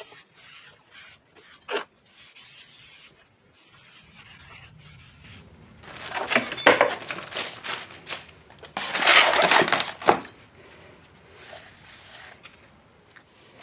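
Rag rubbing over the faces of a new steel brake rotor, wiping off its factory oil with brake parts cleaner. The rubbing comes in scrubbing bursts, loudest about nine seconds in, with a light knock of the rotor near two seconds.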